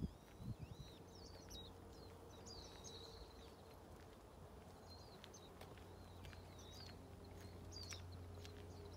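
Faint small birds chirping and twittering again and again, high-pitched, over a low steady hum. A few footsteps on the paved lane in the first second.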